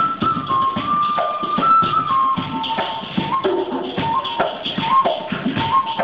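A bamboo flute plays a melody of short held notes stepping up and down, over a steady beat of hand drums and light percussion, in an acoustic ensemble of handmade natural instruments.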